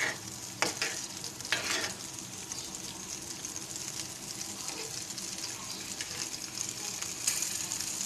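Stuffed green chillies sizzling steadily as they shallow-fry in oil in a non-stick frying pan on a medium-low flame. A spoon scrapes and knocks against the pan a few times as the chillies are turned, about half a second in, around a second and a half, and again near the end.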